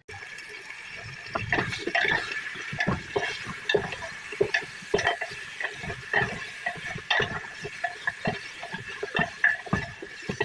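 Pieces of raw beef rib being turned over in an aluminium pot, giving irregular wet knocks and squelches two or three times a second over a steady hiss.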